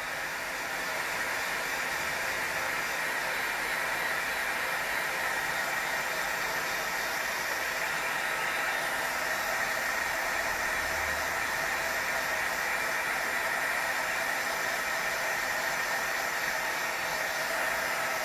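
Electric heat gun running steadily, a constant blowing hiss with a whine-like band in the upper middle. It is post-heating the stretched corners and edges of freshly applied vinyl wrap.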